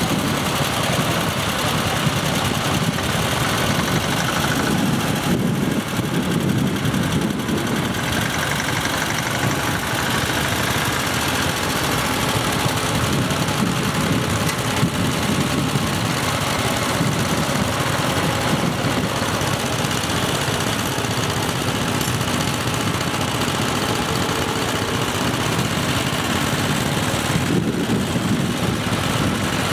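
Small engine of a walk-behind tractor running steadily, with no marked revving or stops.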